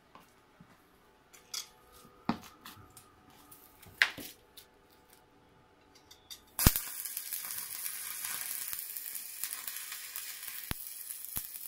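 A few scattered clicks and knocks, then about two-thirds of the way in a stick-welding arc strikes with a sharp crack and settles into a steady crackling sizzle. A welding rod is burning on the arc from an ARC160A inverter welder, joining rebar to galvanized steel channel.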